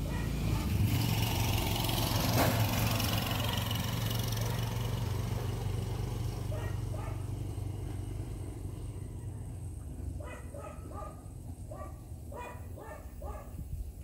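A motor vehicle drives past, its engine hum loudest about two seconds in and then fading away. In the last few seconds a dog barks repeatedly in short, quick barks.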